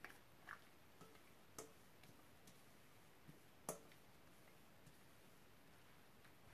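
Near silence, broken by a handful of faint, short clicks and taps spread over the first four seconds, the sharpest one near four seconds in.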